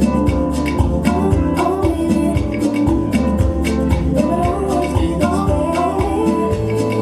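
Mixed dance music: a song with a singing voice over a steady beat.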